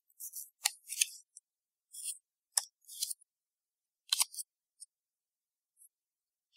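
A folded paper instruction leaflet being handled: crisp rustles in several short bursts, with a few sharp snaps of the paper in the first half, then quiet handling.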